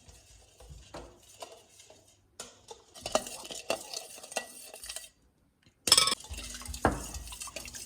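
Spoon stirring the liquid base for a yeast dough (oil, milk, yeast, sugar and warm water) in a bowl, with small clinks against the bowl and a couple of louder knocks near the end.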